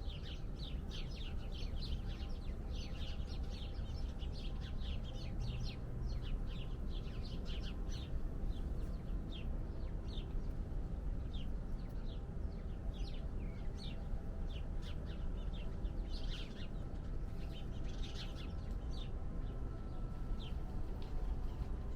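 Small birds chirping in many quick, short calls, crowded together for the first several seconds and then more scattered, over a steady low rumble.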